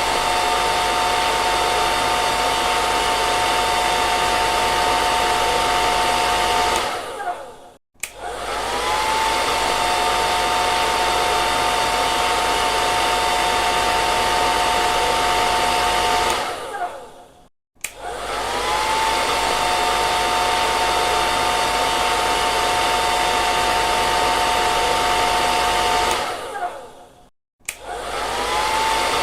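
Hair dryer blowing, a steady rush of air with a motor whine. About every ten seconds it is switched off: the rush and whine fade over about a second into a short silence. It then switches back on, the whine rising to pitch as the motor spins up.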